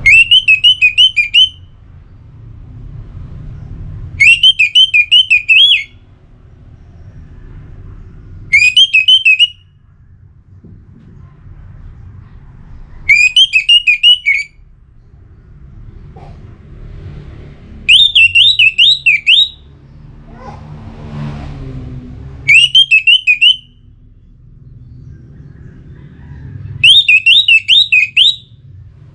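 Orange-headed thrush repeating a short phrase of rapid, high whistled notes, seven bursts about four seconds apart, over a low rumble.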